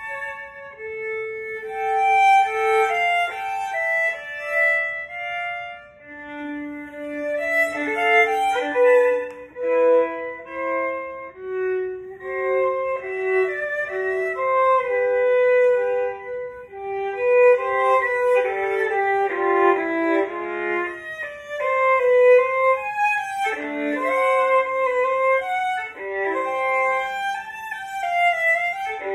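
Solo violin played with the bow: an unaccompanied melodic passage of changing notes, in places with two notes sounding together.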